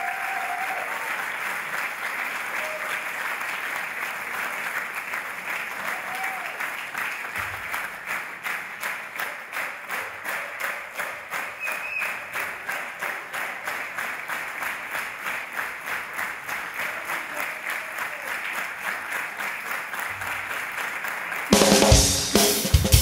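Concert audience applauding, turning about eight seconds in to steady clapping in time. Near the end the rock band comes in loudly on drum kit, bass and guitars.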